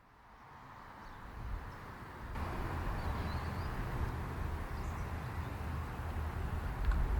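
Diesel freight locomotives approaching with a low engine rumble and a steady rushing noise, building over the first two seconds or so and then holding steady.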